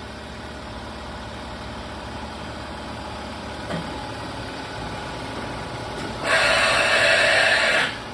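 Kitamura MyCenter 4XiF CNC vertical machining center running for a motion demonstration: a steady mechanical hum, then about six seconds in a loud hiss that lasts about a second and a half and cuts off sharply.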